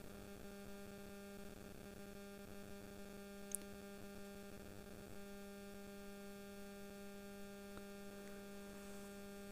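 Faint, steady electrical hum with a stack of even overtones, unchanging throughout, and a single brief tick about three and a half seconds in.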